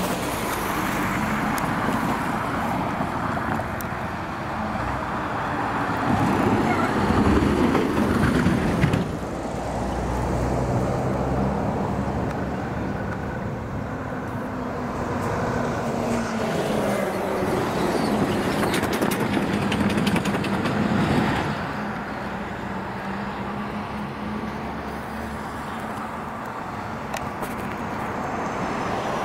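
Road traffic, with two cars passing more loudly, about a quarter of the way in and again about two-thirds through.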